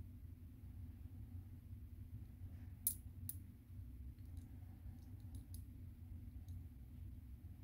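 Light clicks of two bimetallic 2 euro coins touching and being shifted between fingers: two sharper clicks about three seconds in, then a few fainter ones, over a low steady hum.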